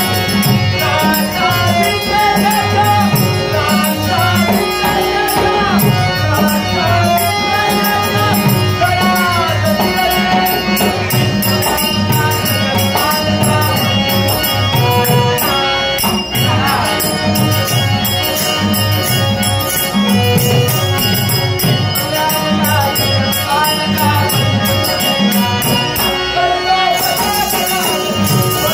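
Live Konkan Dashavatar accompaniment: a harmonium playing with a singing voice over it, and percussion keeping a steady beat.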